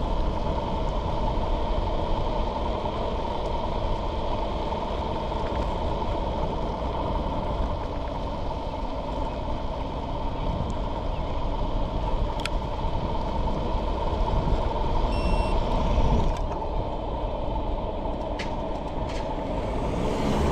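Electric scooter riding at speed: a steady motor whine over wind buffeting the microphone and tyre rumble on asphalt.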